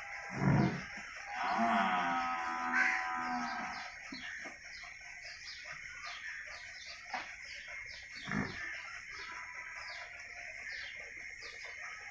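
A cow moos once, a single long call of about two seconds that rises near its end. A dull low thump comes just before it and another about eight seconds in, over a steady high-pitched pulsing background.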